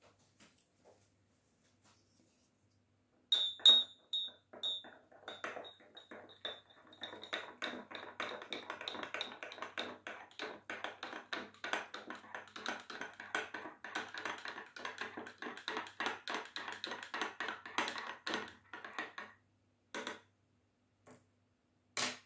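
Metal teaspoon stirring instant Turkish coffee in a small porcelain cup. A sharp ringing clink opens it, then a fast, continuous run of light clinks against the cup's sides lasts about fifteen seconds. A couple of single clinks follow near the end.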